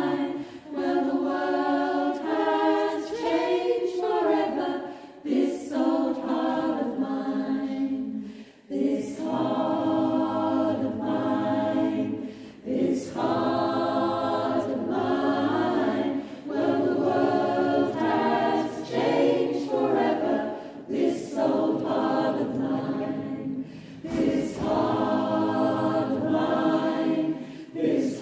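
Mixed-voice choir singing a cappella, in phrases of about four seconds with brief breaths between.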